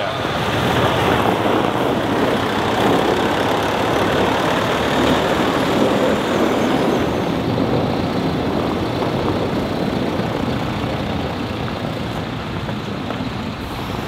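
Semi truck's diesel engine running as the tractor-trailer with its empty lowboy trailer moves off, a steady rumbling noise that grows gradually fainter in the second half.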